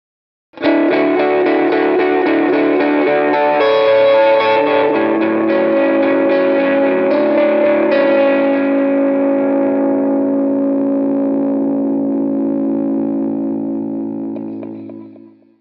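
Fender Jazzmaster electric guitar through a Boss SD-1W Super OverDrive, a delay and a Fairfield Circuitry Accountant compressor into a Fender Princeton Reverb amp, with the compressor last in the chain after the overdrive and delay. Overdriven chords ring out with delay repeats and change a few times, then are let ring and fade away near the end.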